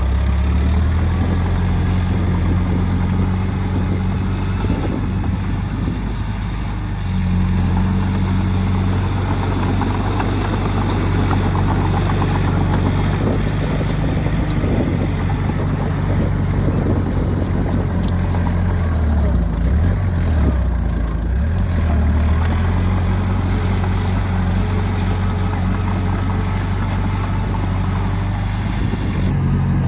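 Heavy diesel engine of earthmoving machinery running steadily, its pitch dipping and rising briefly about twenty seconds in.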